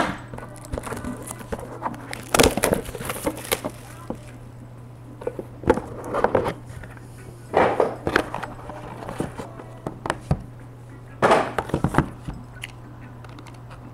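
Baseball card boxes and packaging being handled and opened: irregular bursts of rustling, crackling and light knocks, over a steady low hum.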